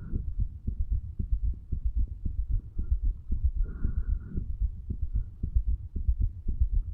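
A man's heartbeat heard at the chest over the tricuspid valve area: low, dull thuds in quick lub-dub pairs at an even pace, with a short hiss about four seconds in.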